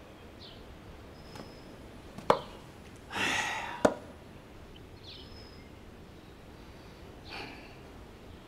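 Quiet room tone broken by two sharp knocks about a second and a half apart. Between them a man gives one heavy exhale, and another fainter breath comes near the end.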